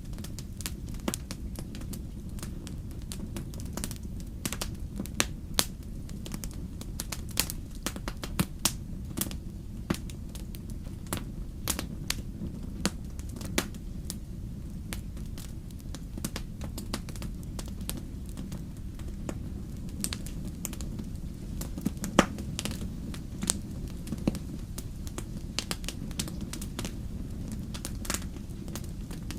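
Fire in a fireplace crackling, with frequent irregular sharp pops over a low steady rumble. One louder pop comes about two-thirds of the way through.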